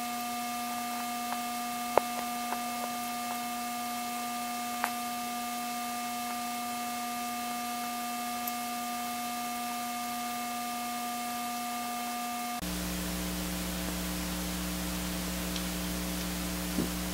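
Steady electrical hum and hiss, with a few light clicks: the sharpest about two seconds in and another near five seconds. The character of the hum changes abruptly about three-quarters of the way through.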